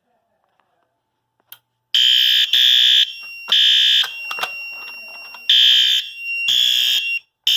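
A click as a fire alarm pull station is pulled, then a fire alarm horn set to high volume sounds in the temporal code-3 pattern: three short loud blasts, a pause of about a second and a half, then three more. A faint steady high tone carries on between the blasts.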